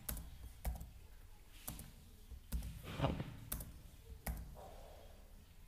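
Computer keyboard keys being pressed singly, about seven faint, sharp clicks at uneven intervals, as Ctrl+V and Enter are struck over and over to paste lines of text.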